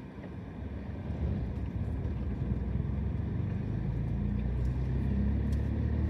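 Car engine and tyre rumble heard from inside the cabin while driving, a low steady drone that builds gradually louder.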